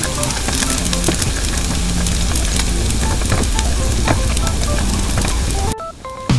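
Dried anchovies and sliced garlic sizzling in oil in a pan over medium heat, with a spoon scraping and clicking against the pan as they are stirred. The sizzling cuts off abruptly near the end.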